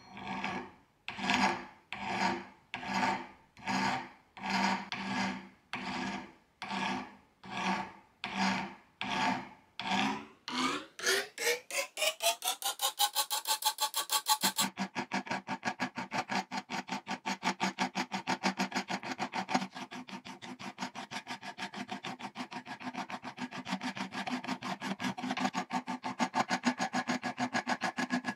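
Round file rasping against the rusty steel finger ring of antique tailor's shears, in separate strokes about two a second. From about eleven seconds in, the strokes quicken into a fast, continuous rasping.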